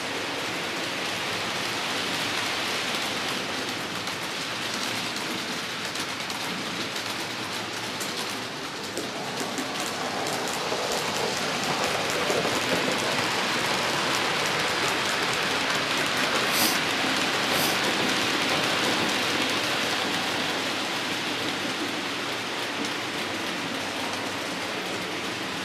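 HO-scale model trains rolling along the layout's track: a steady hissing rattle of wheels on rails, growing louder from about ten seconds in, with two sharp clicks about a second apart past the middle.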